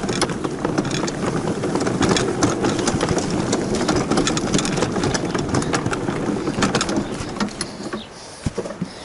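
Go-kart's small Tecumseh engine running with a rapid, rattly beat after a push start, dropping away about eight seconds in.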